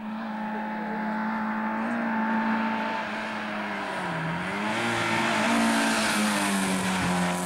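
Competition hatchback's engine at high revs as the car climbs the course toward the camera, growing louder as it approaches. The engine note dips briefly about four seconds in, then climbs again.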